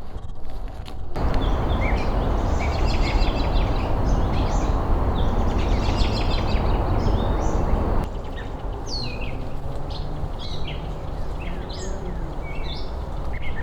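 Small birds chirping and calling repeatedly. From about a second in until about two-thirds of the way through, a loud steady rushing noise lies under them, then stops abruptly.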